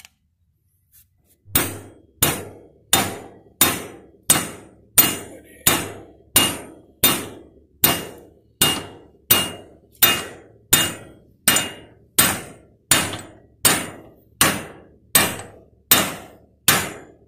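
Hammer striking steel in a steady run of blows, about three every two seconds, each with a short metallic ring, starting about a second and a half in. It is driving a part home into a newly fitted front wheel bearing without a press.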